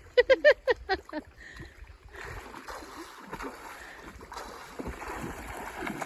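Water splashing as a person swims, a steady rush of splashing from about two seconds in.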